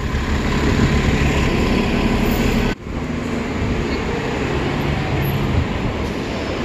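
City street traffic noise with a bus's engine running close by. There is an abrupt cut about three seconds in, after which a steady low hum and general din carry on.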